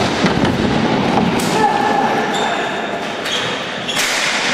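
Ball hockey play around the net: sharp clacks of sticks and ball on the concrete floor, the loudest about a second and a half in and again near the end, with players' voices, all echoing in a large arena.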